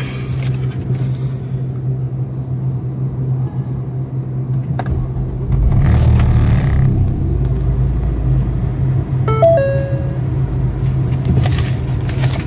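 Ford Focus engine running near idle, heard from inside the cabin, with a low rumble swelling about five and a half seconds in and carrying on: engine vibration that is traced to a collapsed engine support. A short electronic tone sounds about halfway through.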